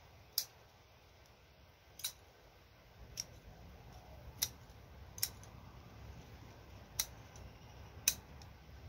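Scissors snipping through tần ô (garland chrysanthemum) stems: seven short, sharp snips at uneven intervals of about a second.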